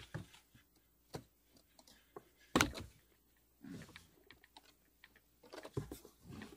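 Scattered light clicks and taps of a pleated cabin air filter being handled and lined up against its plastic filter housing, with one louder knock about two and a half seconds in.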